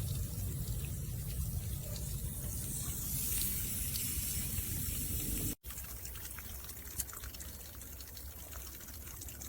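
Water hissing and trickling as it leaks from a metal female-to-female garden hose connector, escaping from the connector's own mechanism rather than its threaded joints. The sound cuts out briefly about five and a half seconds in, then carries on a little quieter.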